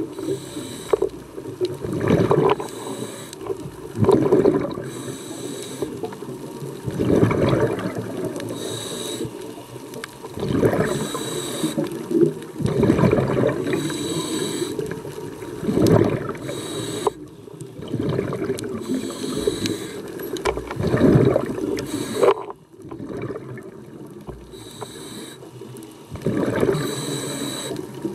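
Scuba diver breathing through a regulator underwater, heard on a repeating cycle every few seconds. Each inhalation brings a short hiss from the demand valve, and each exhalation a burst of gurgling exhaust bubbles.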